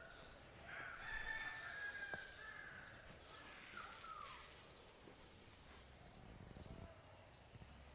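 A single long, faint animal call lasting about three and a half seconds, held at a steady pitch and then sliding down at the end, with a short click about two seconds in.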